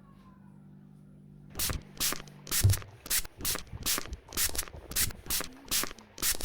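Repeated rough rubbing strokes, about two to three a second, starting about a second and a half in, over a low steady hum.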